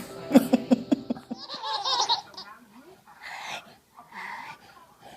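Laughter: a quick run of about six short pitched ha's, then a wavering higher-pitched vocal sound, then two short breathy sounds in the second half.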